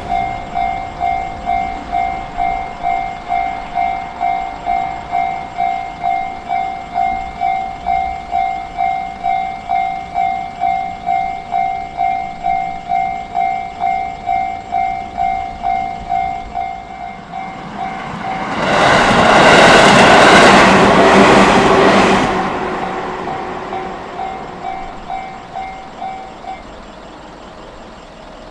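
A Japanese level-crossing alarm bell rings in a steady electronic pulse, about two chimes a second. About 18 seconds in, a train passes through the crossing at speed and is loud for about four seconds. The bell then rings on for a few seconds more and stops.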